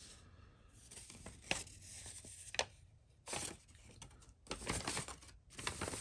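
Faint scattered clicks, scrapes and rustles of a Victorinox Swiss Champ XXL pocket knife being handled, its fold-out tools worked, with a busier patch of scraping a little past the middle.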